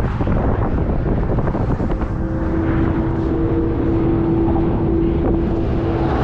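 Wind buffeting the microphone in a steady low rumble, with a steady hum-like tone coming in about two seconds in and stopping near the end.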